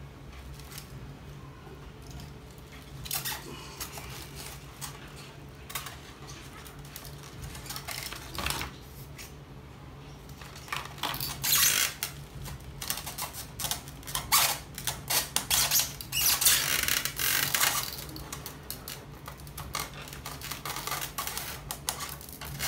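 Handling noise of a diecast model tractor being pressed back into its plastic packaging tray: scattered clicks and knocks, with a denser stretch of plastic rustling and crinkling in the middle, over a low steady hum.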